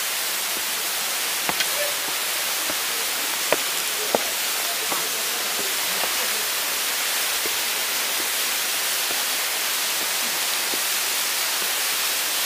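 A steady hiss, with a few sharp clicks about one and a half, three and a half and four seconds in.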